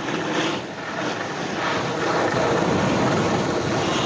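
Blizzard Anomaly 94 skis carving on groomed snow: a rushing scrape of the edges that eases under a second in, then builds and holds, mixed with wind on the microphone.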